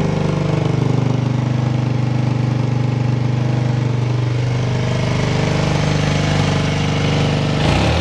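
Suzuki SW-1's single-cylinder four-stroke engine idling steadily and evenly, a stable idle with no abnormal noise. Just before the end the note changes as the throttle is opened.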